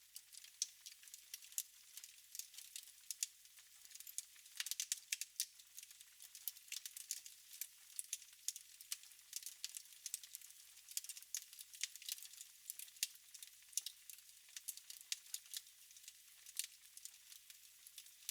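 Wood fire crackling in a fireplace: a continuous run of irregular, sharp pops and snaps, with no low rumble beneath them.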